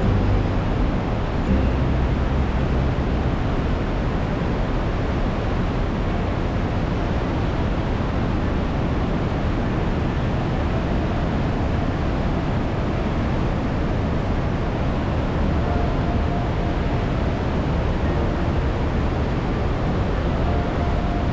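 Trümmelbach Falls' glacial meltwater rushing down through the rock gorge inside the mountain: a loud, steady rush of falling water, heaviest in the deep low end.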